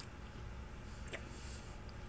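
Quiet room tone: a steady faint low hum, with one faint click a little past a second in.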